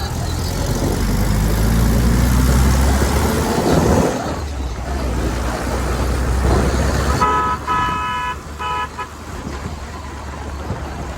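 Suzuki Gypsy jeep's engine running on the move with wind and road noise. A little over seven seconds in, a car horn honks three short times, and the engine rumble eases off after that.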